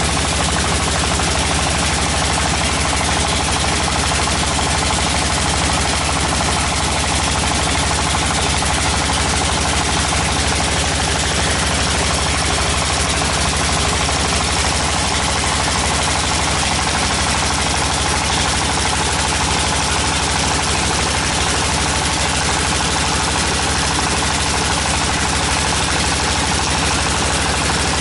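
Engine of a tractor-mounted water well drilling rig running steadily at a constant speed, with a fast, even firing beat.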